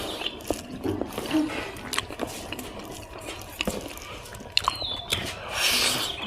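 Close-up eating sounds: chewing and biting spicy pork, a scattered string of sharp wet clicks and smacks, with a short hissing stretch near the end.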